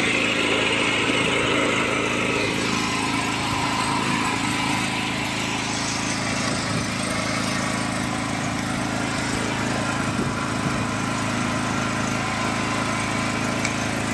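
Gasoline generator's single-cylinder 210 cc four-stroke OHV engine running steadily at its rated speed, a constant even drone.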